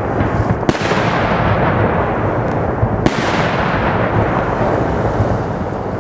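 Daytime fireworks display: aerial shells bursting overhead in a dense, continuous rolling rumble of reports. Two sharper, louder bangs stand out, one just under a second in and another about three seconds in.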